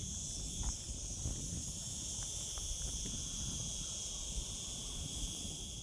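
Steady, high-pitched chirring of insects, with a low rumble of wind on the microphone underneath.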